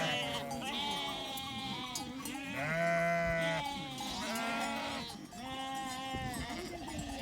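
A flock of sheep bleating, many voices overlapping, with several long calls in a row.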